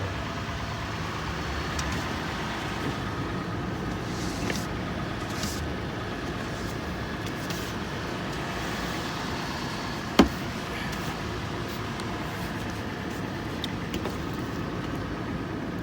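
A car running with a steady hum and noise, and a single sharp click about ten seconds in.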